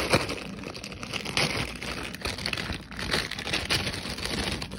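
Plastic packaging crinkling as a fidget toy is handled and opened: a dense, uneven run of small crackles.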